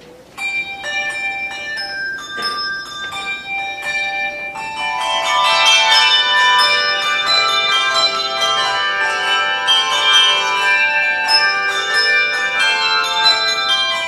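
A handbell choir playing a piece: handbells struck in turn, each ringing a clear, sustained tone that overlaps the next. It starts about half a second in with a few notes and grows fuller, with more bells sounding together, from about five seconds in.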